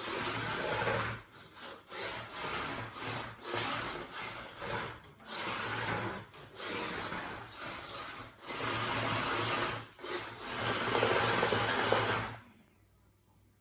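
A small 3D-printed beetleweight combat robot being driven in repeated short bursts, its drive motors whirring and its chassis scraping and rattling over the floor. The noise stops suddenly near the end.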